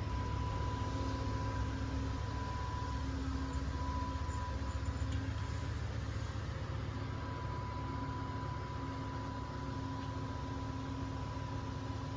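Steady interior noise of an Amtrak Coast Starlight sleeper car: a low rumble under an even hiss, with a steady high whine and a lower hum running through it.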